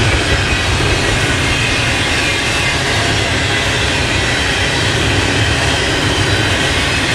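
Intermodal freight train rolling past at a grade crossing: a loud, steady rumble and rush of wheels on rail, with no horn sounding.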